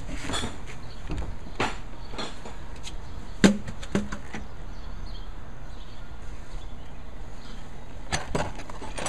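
Scattered light knocks and clinks of parts being handled on a galvanized steel van roof rack as it is set onto its legs, the loudest a short ringing knock about three and a half seconds in, over a steady background rumble.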